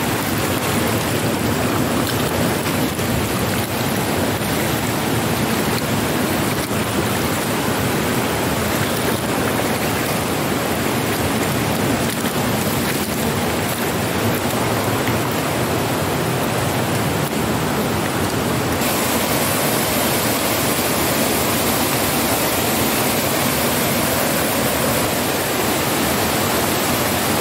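Rushing water of a rocky mountain stream, a loud, steady hiss.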